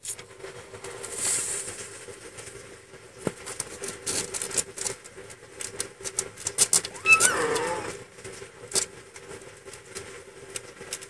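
Nursing Siamese kittens scuffling over their mother's teats: soft rustling of fur and bedding with scattered small clicks, and a short squeaky kitten cry about seven seconds in.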